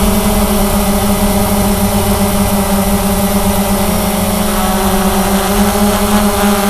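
Cheerson CX-20 quadcopter's brushless motors and propellers droning steadily in flight, with a slight shift in pitch about four to five seconds in.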